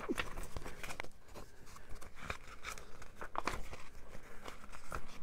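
Paper rustling and short crinkling flicks as the pages of a small CD box-set booklet are turned by hand.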